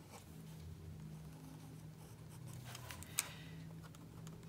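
Faint scratching strokes of a pen-shaped drawing tool on drawing paper, with a short cluster of stronger strokes and one sharp click about three seconds in, over a steady low hum.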